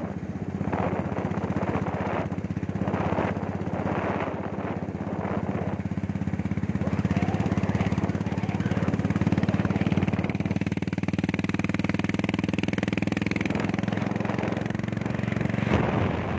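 Royal Enfield motorcycle's single-cylinder engine running steadily under way, with wind and road noise mixed in.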